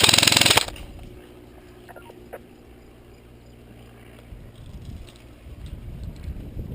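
An airsoft gun firing one short full-auto burst of rapid shots, over in about half a second. Then a low rumble from about four seconds in.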